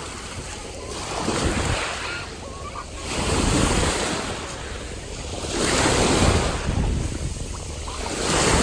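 Sea waves washing ashore, the noise swelling and falling back every two to three seconds.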